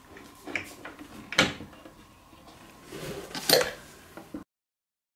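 Hands handling the wooden frame and plywood base of a flat-pack chair on cardboard, with a T-handle hex key: light knocks and clatter, with two louder knocks about a second and a half and three and a half seconds in. The sound cuts off abruptly a little after four seconds in.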